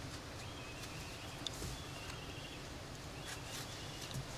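Faint woodland ambience with several thin, high whistled bird notes, each held for up to about a second, and a few soft clicks.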